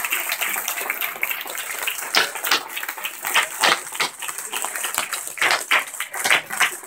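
Audience applauding; the dense applause thins after about two seconds into scattered, separate claps.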